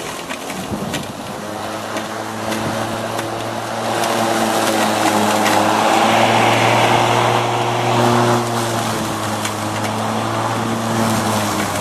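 Greenworks 12-amp corded electric lawn mower running with a steady motor hum that starts a second or two in. A louder rush of blade and cut grass swells between about four and eight seconds in.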